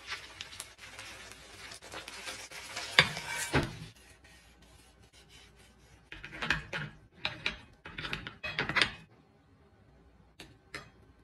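Crispy fried hash brown slid from a frying pan onto a plate, with scraping and a couple of knocks in the first few seconds. About halfway through, a fork cuts through the crust in several short bursts of crunching and scraping against the plate.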